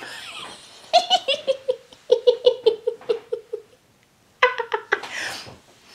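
A woman laughing helplessly: a run of quick, short laughs that fade away, then after a brief pause another short burst of laughter and a breathy sound.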